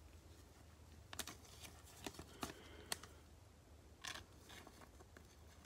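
Thin plastic trading-card sleeve crinkling and clicking as it is handled in nitrile-gloved hands and a card is slid into it, with a few sharp crackles between about one and four seconds in.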